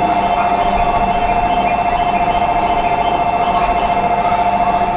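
Electronic platform warning buzzer ringing as a steady two-note tone with a rapid flutter, the signal that the Shinkansen train's doors are closing.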